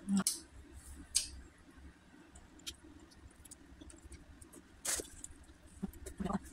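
Close-up eating sounds of someone eating a cooked salmon head: wet chewing and lip-smacking with scattered short clicks. The loudest smacks come just after the start and about five seconds in.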